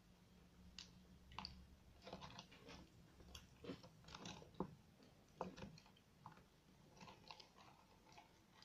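Faint, scattered sticky clicks and squelches of homemade glue-and-borax slime being stirred and handled in its container.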